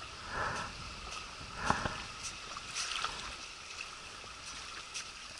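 River water lapping against shore ice at the water's edge: soft splashes swelling about half a second in and again near two seconds in, over a faint steady wash.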